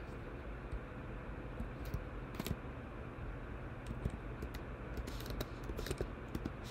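Computer keyboard keystrokes: scattered, irregular key taps over a steady faint hiss.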